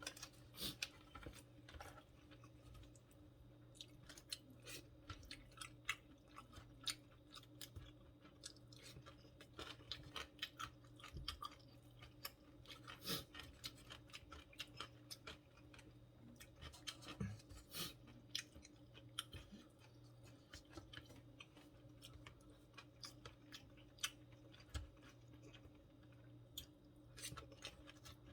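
Close-miked chewing of food: irregular wet mouth clicks and smacks, several a second, over a faint steady hum.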